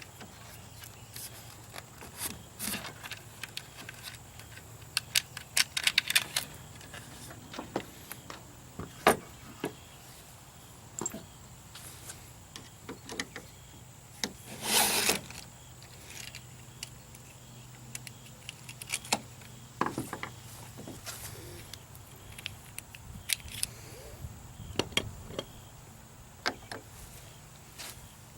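Scattered clicks and metal clinks of hand tools and parts being handled while a trolling motor is taken apart, with a longer rasping noise of about a second halfway through.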